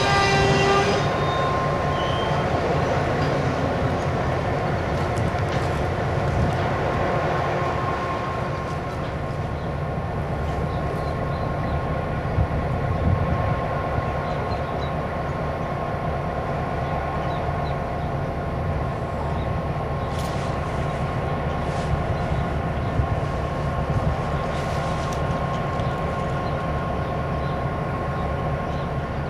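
Freight train with diesel locomotives: a steady low rumble of engines and cars. A pitched, squeal-like tone with several overtones stops about a second in, and a thin steady whine carries on under the rumble.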